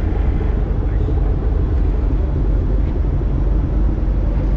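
A small fishing boat's engine running steadily under way while trolling: a constant low drone, with hiss from wind and water.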